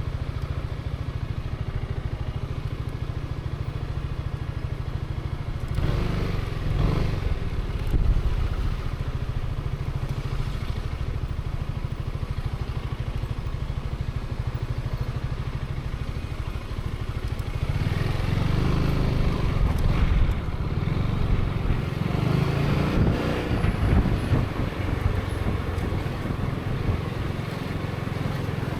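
Zontes 350E's engine running at low speed, heard as the rider sees it, swelling briefly with the throttle about six seconds in. It picks up again and runs louder from about two-thirds of the way through.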